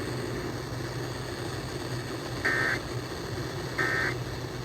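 Two short, buzzy data bursts of an Emergency Alert System end-of-message (EOM) code, about 1.3 s apart, marking the end of the alert. They sound over steady broadcast hiss and a low hum.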